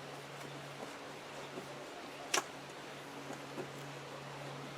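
Faint ticks and clicks of a screwdriver working a screw out of a door handle, with one sharper click about halfway through, over a steady low hum.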